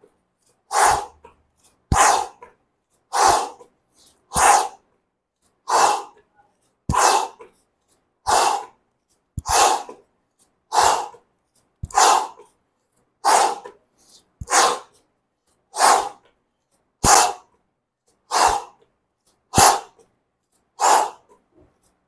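A man's sharp, forceful exhalations, one with each alternate shoulder touch as he holds a plank, in an even rhythm about every 1.2 seconds.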